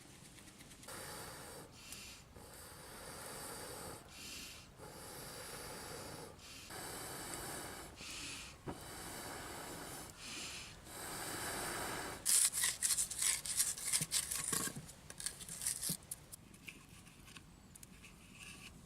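Rhythmic rasping strokes of something rubbed back and forth, about one stroke a second, then a louder run of sharp clicks and crackles.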